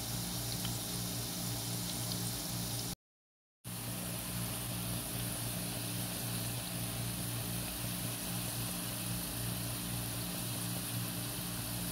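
Potato slices deep-frying in hot oil in a pan: a steady sizzling hiss with a constant low hum underneath. The sound cuts out completely for about half a second around three seconds in.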